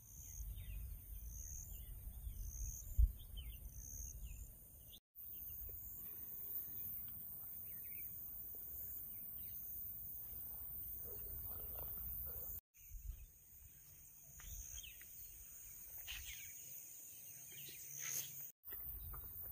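Birds chirping outdoors in grassland, a run of short high notes in the first few seconds and scattered fainter calls after, over a low rumble.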